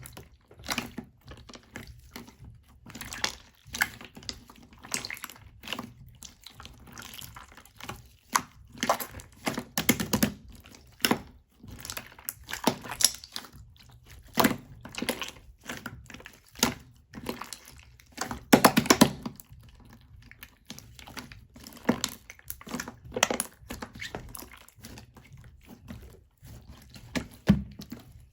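Close-up irregular crunching and clicking, many short crisp sounds with a few longer crunchy bursts.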